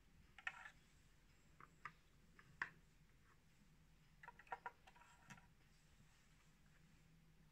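Small plastic cuvettes clicking and knocking as they are lifted out of a colorimeter's sample slot, set into a plastic rack and the next one pushed into the slot: a few scattered clicks, then a quicker cluster of them about four and a half seconds in.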